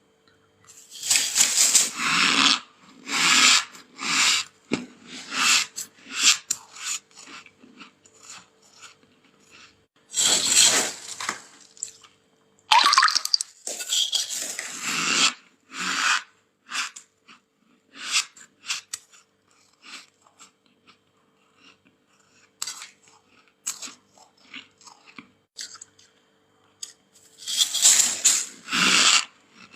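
Freezer frost being crunched and chewed: irregular bursts of crunching, with bigger mouthfuls at a few points and many small crunches between.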